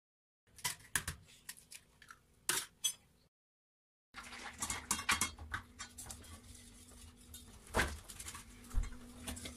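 Metal spoon tapping and scraping against a stainless steel pot as powder is spooned into milk and stirred. A brief cut of dead silence comes about three seconds in. The stirring then carries on with denser clinks and scrapes over a faint steady hum.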